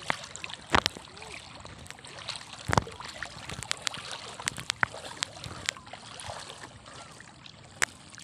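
Shallow seawater sloshing and trickling around wading legs, with many short sharp splashes and ticks scattered through it; the loudest come about a second in and just before three seconds.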